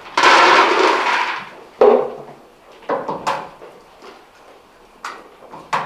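Handling at a red plastic bucket: a loud scraping rush lasting about a second near the start, then a handful of sharp knocks and clatters.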